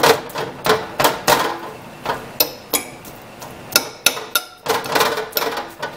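Metal fork clinking and scraping against a ceramic baking dish while breaking apart chunks of cooked chicken, in quick, irregular taps.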